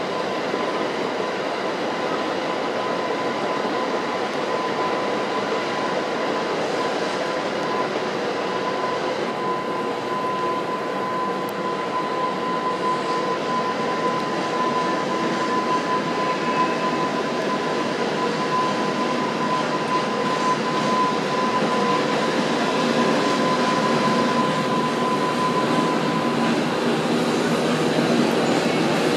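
JR Freight EH500 electric locomotive hauling a container freight train, a steady rumble of wheels on rail with a thin steady high tone over it, growing slowly louder toward the end as it approaches.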